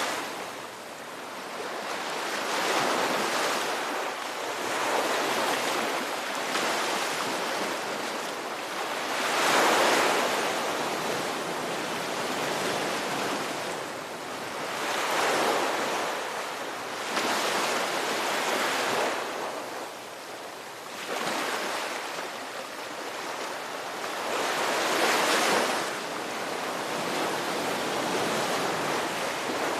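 Ocean waves breaking and washing on a shore, a steady rush that swells and fades in surges every few seconds.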